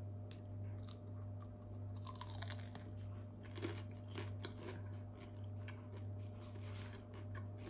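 A person biting and chewing food close to the microphone, many small irregular clicks and crunches, over a steady low hum.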